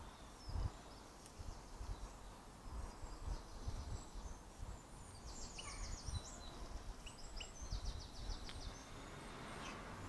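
European goldfinches twittering: two quick high trills, about five and a half and eight seconds in, with scattered thin chirps. Uneven low rumbling bumps run underneath and are the loudest sound.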